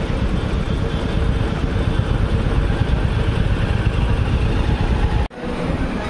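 Royal Enfield Classic 350's single-cylinder engine running steadily while riding along a road, a dense low rumble. It cuts off abruptly about five seconds in, replaced by quieter indoor room noise.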